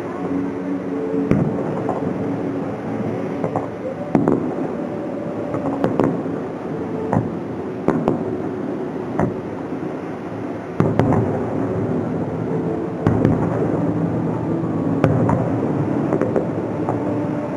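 Fireworks shells bursting in a display, sharp bangs every second or two over a continuous crackling rumble.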